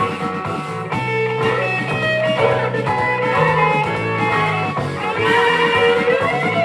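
Instrumental passage of 1970s rock music: an electric guitar plays a lead with bending notes over bass and the rest of the band.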